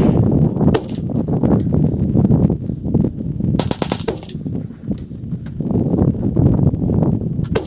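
Several rifle shots from an AR-15 with a 12.5-inch barrel firing 5.56/.223 match ammunition, played back at three times speed, so the shots and handling noises come quickly one after another over a continuous low rumble.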